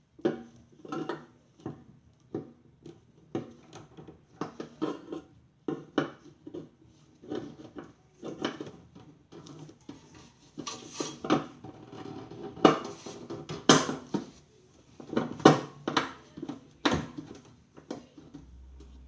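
Irregular clattering and knocking of hard parts and tools being handled while a microwave is taken apart, busier and louder in the second half.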